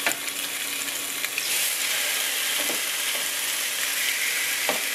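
Pieces of pink salmon sizzling as they fry in a pan, searing on the first side to form a crust. The sizzle gets louder about a second and a half in.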